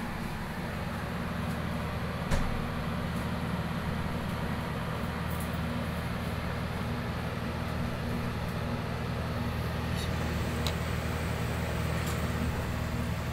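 Commercial ice maker's refrigeration unit running with a steady low hum, the machine working normally with its control board and system repaired. One sharp knock comes about two seconds in.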